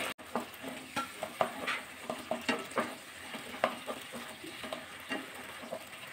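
A spatula stirring potato pieces through a thick mustard paste in a kadai: irregular short scrapes and taps against the pan, about two or three a second, over a faint sizzle from the cooking paste.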